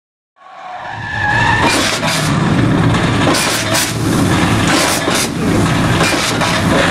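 Drifting cars' engines revving hard with tyres squealing, the sound fading in over the first second. Several short, sharp hissing blasts cut through the roar.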